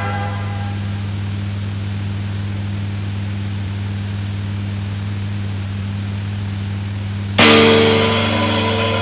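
Steady low hum with hiss between pieces of music, the last ringing note of the previous music fading in the first second. About seven and a half seconds in, music with guitar starts suddenly.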